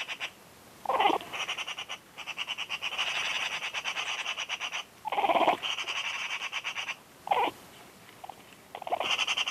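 A domestic cat mimicking bird calls: long stretches of rapid, rattling chatter, broken by about three short, loud calls that fall in pitch.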